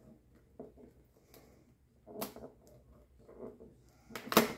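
Faint rustles and clicks of cardboard and plastic being handled, as a perforated numbered door on a cardboard surprise-pack box is pressed open. There is a louder crackle about two seconds in, and the loudest near the end.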